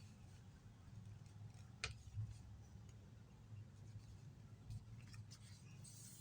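Faint sounds of a sheet of paper being handled and folded: a few soft clicks and crinkles, the sharpest about two seconds in, over a low steady hum.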